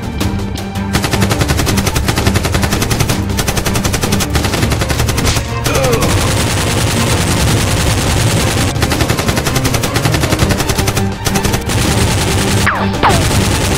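Rapid automatic gunfire: a dense, loud run of shots with a few brief breaks, most likely dubbed-in gun sound effects.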